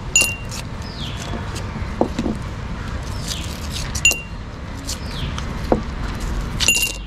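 Mint candies dropping into a drinking glass, each landing with a short glass clink that rings at the same pitch, three times: just after the start, about four seconds in, and near the end.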